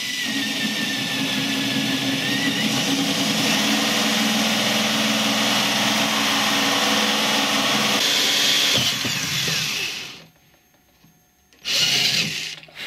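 Ryobi cordless drill with a 20 mm hole saw cutting through a painted cupboard door, running steadily for about ten seconds, then stopping; a short second burst of drilling comes near the end.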